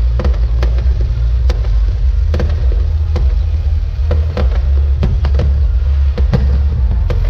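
Aerial fireworks shells bursting in a display: many sharp bangs and pops at irregular intervals, over a steady low rumble.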